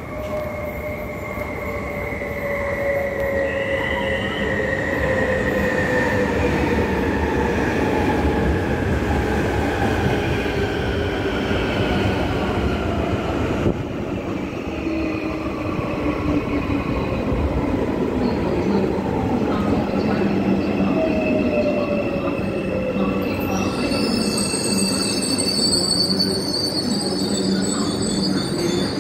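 Marmaray electric commuter train pulling into the platform and braking to a stop, getting louder over the first few seconds as it arrives. Its motor whine falls steadily in pitch as it slows, over rumbling wheel noise, and a high squeal starts near the end as it comes to a halt.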